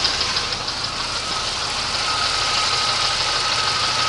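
1989 Oldsmobile Cutlass Supreme engine idling at operating temperature with a quick rhythmic knock, a knock that comes on only when warm and that the owner suspects is piston slap. The knock fades about a second in, and a steady high whine joins the running engine.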